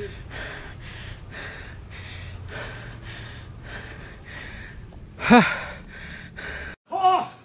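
A cyclist panting hard, about two heavy breaths a second, out of breath from pedalling; he puts the heavy going down to his faulty brakes. About five seconds in comes a short, loud voiced cry that rises and falls in pitch. The sound cuts out suddenly and another brief voiced sound follows near the end.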